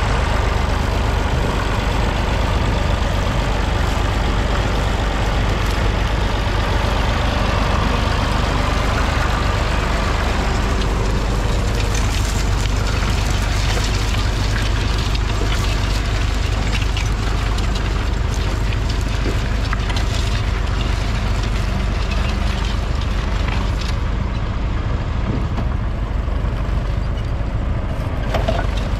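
1962 Massey Ferguson 35's 2.5-litre three-cylinder diesel engine running steadily under load while pulling a two-furrow mounted plough. From about ten seconds in, light crackling clicks are added as the plough turns soil and stubble.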